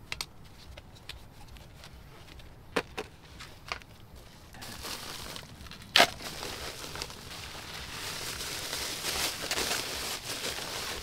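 Strut parts being handled over a plastic sheet: a few light clicks and knocks, then a sharp knock about six seconds in. From about halfway, plastic crinkles and rustles as the stock coil spring and its rubber pieces are handled.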